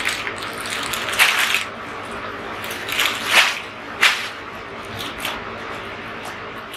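Plastic packaging crinkling and rustling as packets of balloons and a thin foil packet are handled, with a few sharper crackles.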